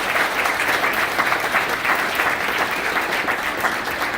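Audience applauding steadily, many hands clapping together: applause for an award being presented.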